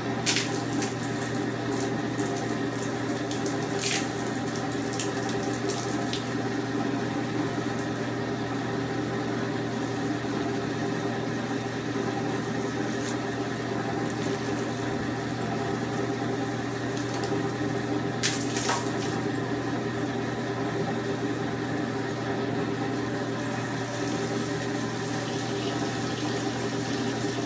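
Water from a garden hose splashing onto rice chaff inside a copper coating pan as the chaff is soaked, over the steady hum of the pan's drive motor. A few sharp clicks stand out, one near the start, one about four seconds in and one past the middle.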